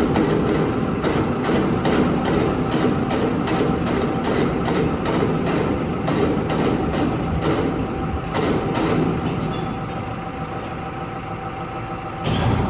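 A heavy engine running steadily, with rapid metallic clicks, about three a second, that die away about nine seconds in. Near the end a louder noise sets in.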